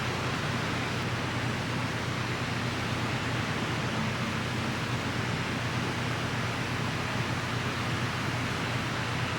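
Steady, even hiss with a low hum underneath, unchanging, with no distinct events.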